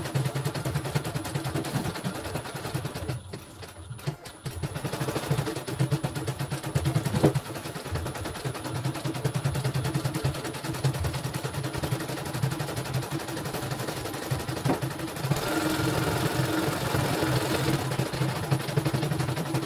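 CNY computerized embroidery machine stitching a design, its needle clattering in a rapid rattle, sped up so the stitches run together. It drops out briefly about three seconds in and runs louder for the last few seconds.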